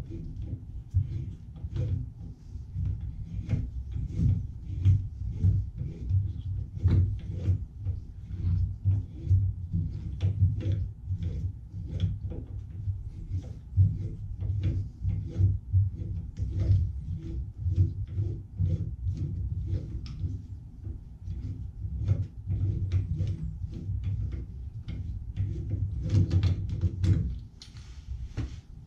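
Many small clicks and knocks as a threaded copper pipe adapter and a black tool are handled and twisted on a copper pipe stub, over a steady low rumble that drops away near the end.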